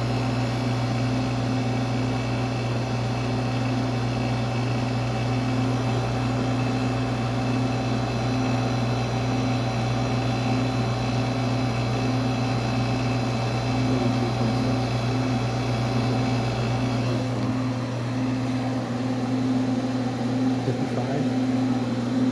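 A running R-134a air-conditioning unit, its compressor and fan motor giving a steady electrical hum. The low rumble beneath it thins out near the end.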